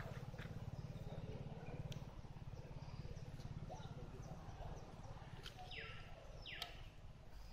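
Quiet outdoor ambience with a steady low rumble and a few faint clicks. About three-quarters of the way through, two short animal calls glide downward in pitch, one after the other.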